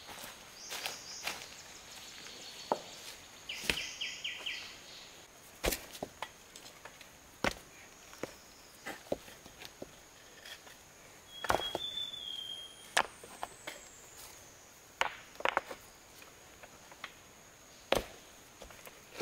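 Forest ambience: a steady high insect drone with two short bursts of fast pulsed insect chirping in the first few seconds. Irregular sharp knocks and snaps, a few seconds apart, are the loudest sounds.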